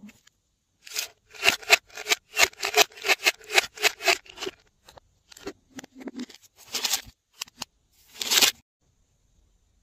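Hard plastic scraping and rubbing as hands grip and twist a gold plastic cow-shaped container, in a quick run of strokes about three a second, then a few scattered ones and one longer scrape near the end.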